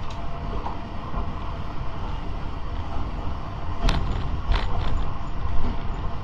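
Tram running along the track: a steady rumble of wheels on rails, with a couple of sharp clacks about four seconds in.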